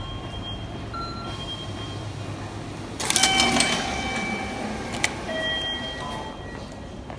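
Automatic ticket gate taking a paper ticket: about three seconds in, a sudden burst of mechanical whirring and clatter as the ticket is fed through, then a sharp click and a short electronic tone. Short beeps sound faintly near the start and about a second in.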